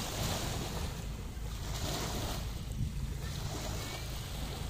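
Wind on the microphone over a steady low rumble, with waves washing in swells that rise and fall every second or two.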